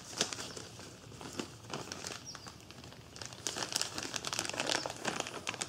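Clear plastic packaging bag crinkling and crackling as gloved hands handle it, a steady run of small sharp crinkles that gets busier and louder about halfway through.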